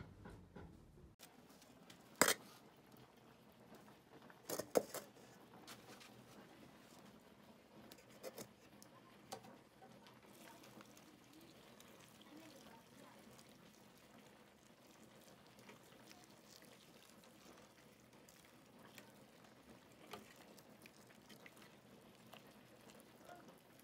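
Water pouring from a kettle into a metal pot of chicken over a wood fire: a faint, steady splashing. A few sharp knocks come in the first ten seconds, the loudest about two and five seconds in.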